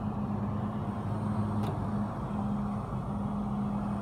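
Steady low mechanical hum heard from inside a car's cabin, with a single brief click about one and a half seconds in.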